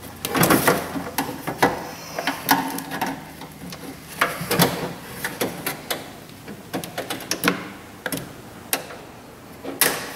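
Irregular metallic clicks, taps and short rattles of a hand tool working against sheet-metal and regulator parts inside a car door.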